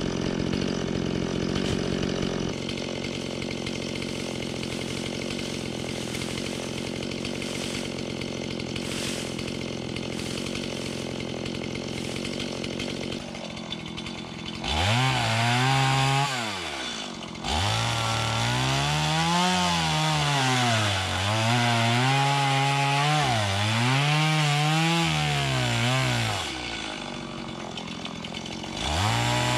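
Stihl MS170 two-stroke chainsaw running at a steady idle, then, about halfway through, revved in repeated rising and falling surges as it cuts into a small tree. It settles back to idle briefly near the end before revving up again.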